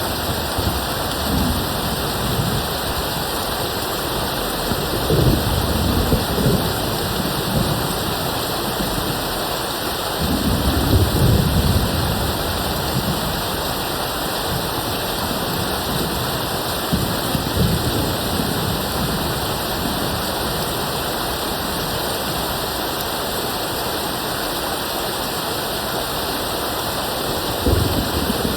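Steady heavy rain hiss with thunder rumbling low in the distance, swelling about five seconds in, again around ten to twelve seconds, and once more near the end.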